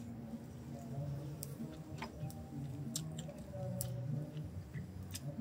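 Chopsticks clicking a few times against dishes, with light chewing, over a faint low steady hum.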